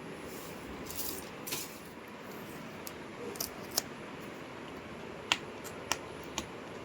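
Packaging and accessories being handled during an unboxing: brief rustling about a second in, then scattered sharp clicks and taps, over a faint steady hiss.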